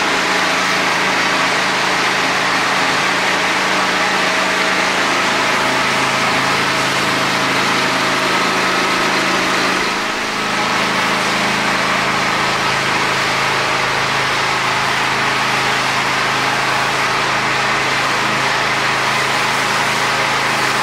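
Pull-start petrol engine of a pressure washer running steadily under load, with the high-pressure water jet hissing against a concrete floor. The level dips briefly about halfway through.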